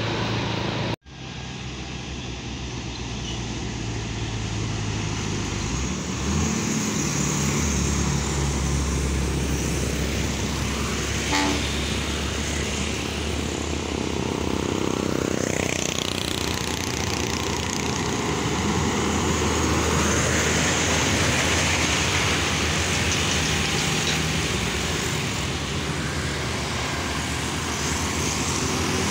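Road traffic passing close by: heavy container trucks' diesel engines and motorcycles driving past one after another, with a short horn beep about eleven seconds in. The sound drops out briefly about a second in.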